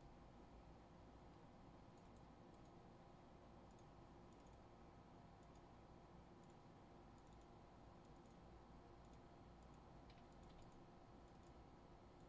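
Near silence: faint room hum with scattered soft clicks of typing on a computer keyboard.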